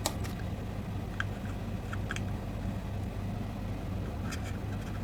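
Steady low hum with a few light clicks of metal tools against the circuit board as leftover capacitor pins are desoldered.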